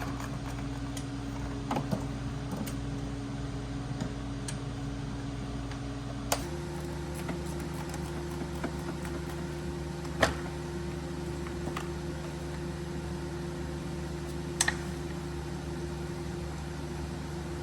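A steady background hum from a running motor, with a few sharp clicks and clinks of a metal socket and ratchet on the coil-pack nuts of a 2008 Acura MDX 3.7 V6.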